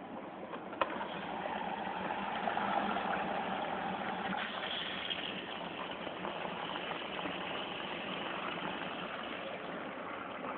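Steady mechanical hum of a running household appliance, with a single sharp click about a second in.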